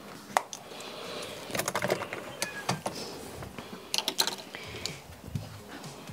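Makeup products and tools being handled, giving sharp clicks and rattles in quick clusters, the densest about a second and a half in and again about four seconds in.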